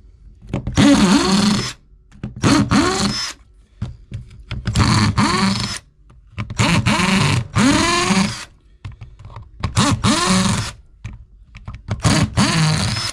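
A power driver run in six short pulses of about a second each, its motor speeding up and winding down each time, as it works a fastener out of the tool's gear housing. Loud, which is taken as obnoxious.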